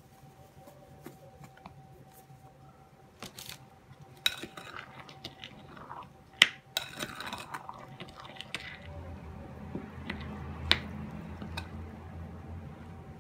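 A metal spoon stirring flour into a wet dough in a ceramic bowl, with sharp clinks of the spoon against the bowl and scraping as the flour is worked in. A low steady hum comes in about two-thirds of the way through.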